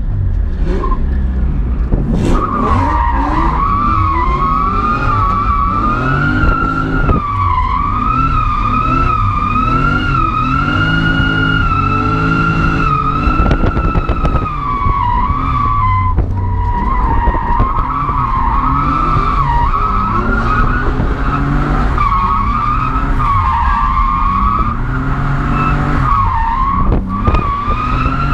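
Car drifting: the tyres squeal almost without a break in a high, wavering screech, over the engine revving up and down, heard from inside the cabin.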